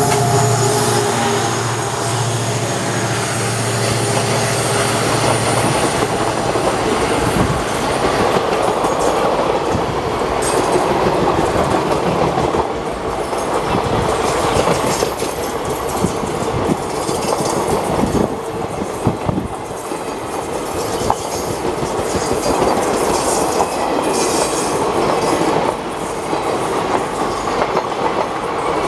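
Passenger coaches rolling past on jointed track: a steady rumble of steel wheels with clickety-clack over the rail joints and scattered sharp clicks. At first the steady drone of the EMD WDG4 diesel locomotive's engine is heard under it, dying away about six seconds in.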